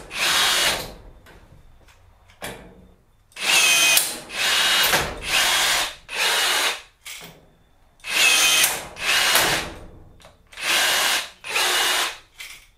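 Bosch 18V cordless power tool whirring in short bursts of under a second each, about seven of them, mostly in pairs, with small clicks between them, as a mount is fastened to metal pegboard.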